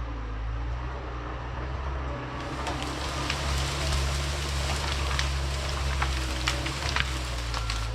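John Deere 650K crawler dozer's diesel engine working under load. From about two and a half seconds in, brush and branches crackle and snap as they are pushed over and crushed.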